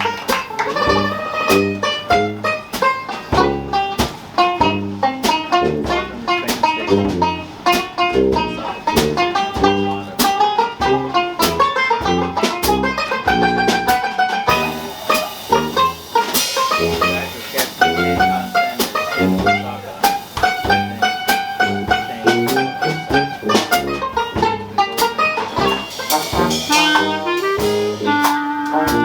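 Dixieland-style jazz band playing live: plucked strings keep a steady beat under brass, with a bass line stepping note by note beneath.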